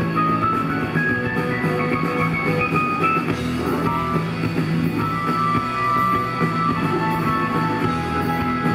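Live rock band playing an instrumental passage without vocals: electric guitar over drums and bass, with a melodic lead line stepping upward in the first few seconds.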